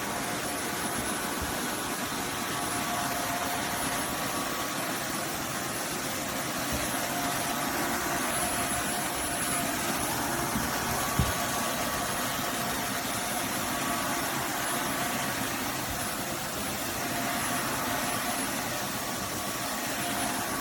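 Roborock F25 GT wet-dry vacuum mop running its self-cleaning cycle in the dock: a steady rush of motor and airflow with a few steady high tones over it. One short click about eleven seconds in.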